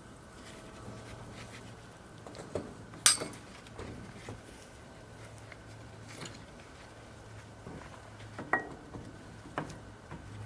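Metal tools and steel parts clinking and knocking together during disassembly of a manure spreader drive, with a sharp metallic clank about three seconds in and a ringing one near eight and a half seconds.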